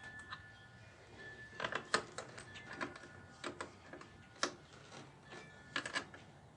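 Scattered sharp metallic clicks and taps at irregular intervals, a few of them in quick pairs, from a wrench working on the locomotive's battery lead terminals.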